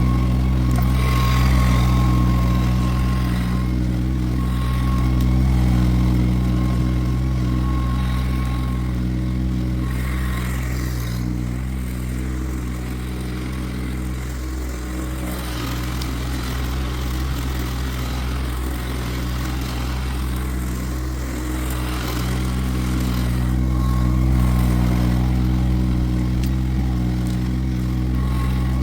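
An engine running at a steady speed throughout, its level swelling and easing slightly a few times.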